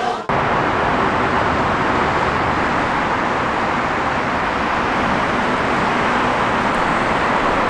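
Steady road traffic noise, cars passing on a busy multi-lane city road, an even rushing hiss that comes in abruptly a moment in.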